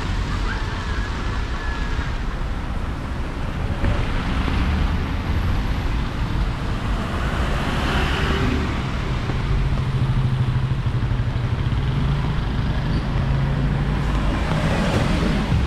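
Street traffic: cars passing on a road over a steady low rumble, with several vehicles swelling past over the span.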